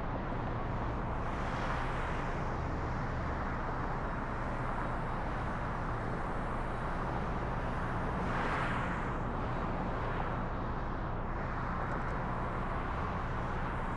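Steady road noise of a car being driven: tyre and engine noise, with a brief swell about eight and a half seconds in.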